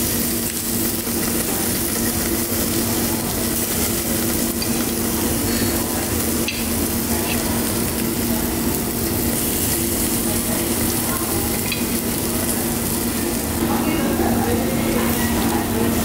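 Beef sizzling on a gas-fired yakiniku grill grate: a steady frying hiss, with a steady low hum beneath and a few light clicks.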